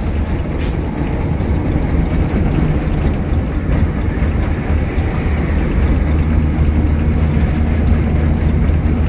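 Steady low rumble of an intercity bus in motion, heard from inside the passenger cabin: engine drone and tyre noise on the road, with a few faint ticks.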